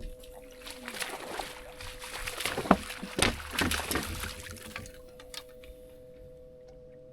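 Water splashing and sloshing at the side of a bass boat as a hooked bass thrashes at the surface while it is brought in, loudest about three seconds in. A steady two-note hum runs underneath.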